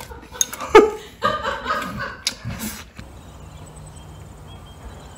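A man laughing, with a few sharp clicks, cut off abruptly about three seconds in. Then faint outdoor ambience with faint high chirps repeating at an even pace and a low steady hum.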